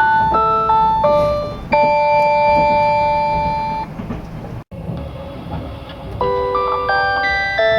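JNR train onboard chime playing over the carriage's PA, with the rumble of the running train underneath. The melody ends on a long held note about two seconds in that fades away, and the recording breaks off about four and a half seconds in. Another chime melody starts near the end.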